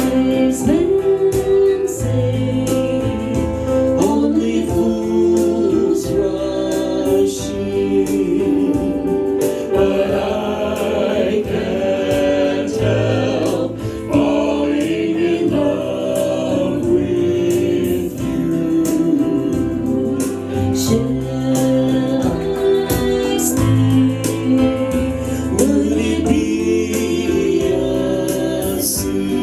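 A band playing a song, with several voices singing together over the instruments.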